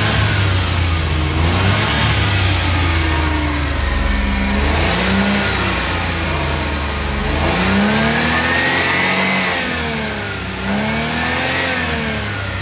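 Suzuki mini pickup's small petrol engine being revved up and down several times, the pitch rising and falling with each blip of the throttle. It holds the revs without stalling now that the fuel blockage has been cleared.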